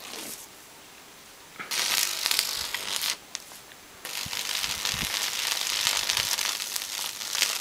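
High-voltage arc from a microwave oven transformer crackling and sizzling where the probe meets the dirt. It comes in two bursts: one of about a second and a half, starting near two seconds in, then a longer one from about four seconds in.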